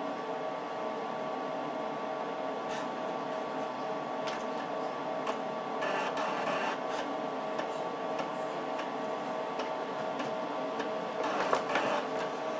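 HP 54845A oscilloscope's PC-based internals running as it boots: a steady fan hum with a few fixed whining tones, broken by occasional clicks and short bursts of disk-drive activity.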